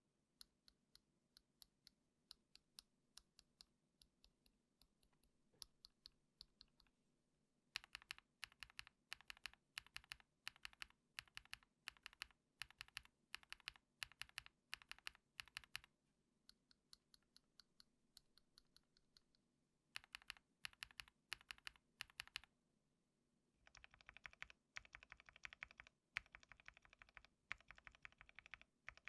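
Mechanical keyboard keystrokes: single key presses about two a second, then runs of fast presses, a short pause, and dense rapid typing near the end. A ticking test of frankenswitched Epsilon switches in a KBD67 Lite with case foam and car foam, listening for the switches' tick.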